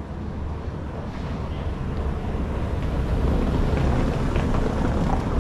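A car driving up from behind on a cobblestone street, its engine and tyres on the cobbles growing louder over the first few seconds as it draws close.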